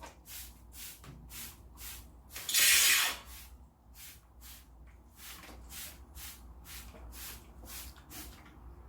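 Hand-pump spray bottle misting water in quick short spritzes, about two a second, with one longer, louder spray about two and a half seconds in.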